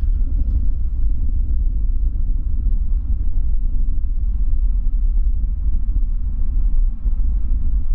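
Boeing 787-9 airliner's jet engines running at taxi power: a steady, deep rumble.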